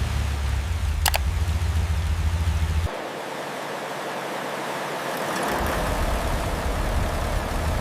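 M48 Patton tank's rebuilt Continental V12 engine running, a deep steady rumble. About three seconds in the deep rumble cuts off suddenly, leaving a steady hiss, and it comes back about two and a half seconds later; a brief sharp high sound comes about a second in.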